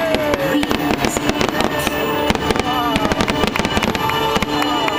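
Fireworks bursting and crackling in a dense, rapid string of bangs, with show music playing underneath.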